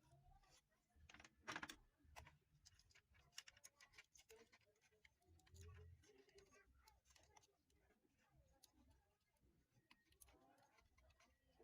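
Near silence, with faint scattered clicks and ticks, the clearest about a second and a half in.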